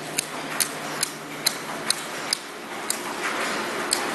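Sticker labeling machine running, with sharp metallic ticks about twice a second over a steady mechanical hiss. A low hum fades out partway through.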